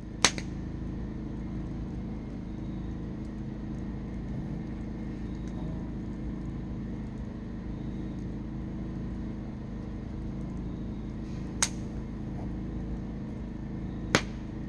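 Wood campfire burning with a steady low rumble, broken by sharp pops from the burning logs: one at the start and two near the end.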